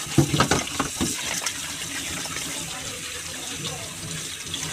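Tap water running into a stainless steel mesh colander as blanched pork tail pieces are rinsed and rubbed by hand in the sink. There are a few sharp knocks in the first second and a half.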